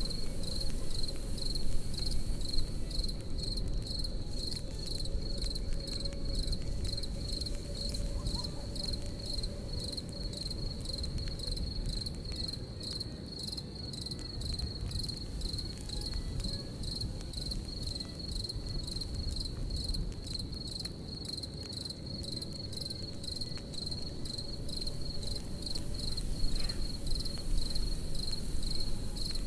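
Crickets chirping in a steady, even pulse, about three chirps a second, over the low rumble and faint crackle of a campfire.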